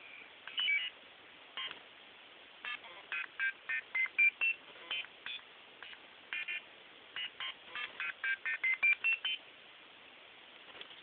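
Electronic beeper of an Arduino alarm clock sounding a quick run of short beeps at changing pitches, in irregular groups of two to four notes, most of them falling between about half a second and nine seconds in.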